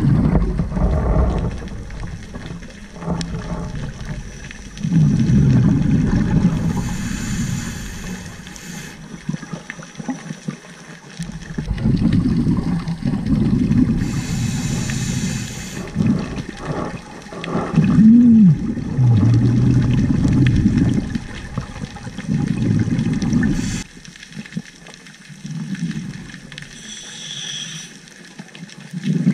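Scuba diver breathing through a regulator, recorded underwater through a camera housing: about five rushes of exhaled bubbles, each about two seconds long, alternating with fainter hissing inhales.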